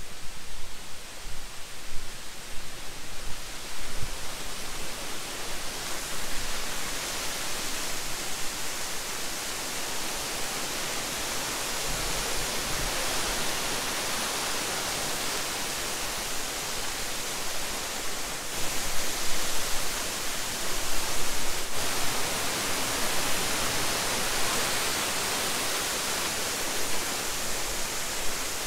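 Steady rush of falling water from Plodda Falls, a tall waterfall, growing louder and brighter from about six seconds in as the falls come into view.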